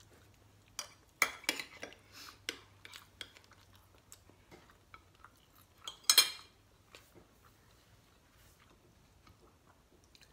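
Fork and spoon clinking and scraping on a plate of fish and rice: a scatter of short clinks, the loudest cluster about six seconds in.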